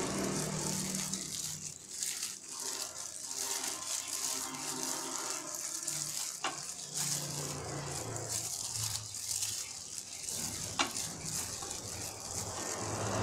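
Plastic-gloved hand squeezing and mixing moist grated cassava pulp in a bowl: the thin plastic glove rustles and crinkles steadily, with soft squishing of the pulp. Two sharp clicks stand out, one about six seconds in and one near the end.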